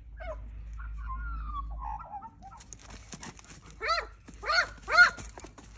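Short bark-like animal calls that rise and fall in pitch: four loud ones in the second half, about half a second apart, after a quieter stretch with a low rumble.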